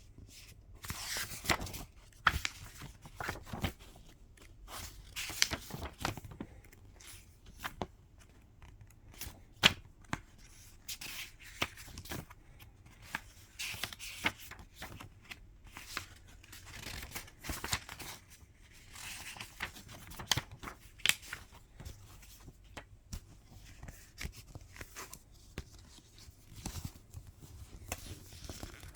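Album packaging being handled: irregular paper and plastic rustling and tearing, with frequent sharp clicks and taps.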